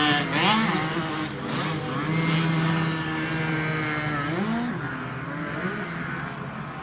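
Small 50cc motocross bike engine at high revs, its pitch rising sharply twice as the throttle is worked, and growing fainter as the bike rides away.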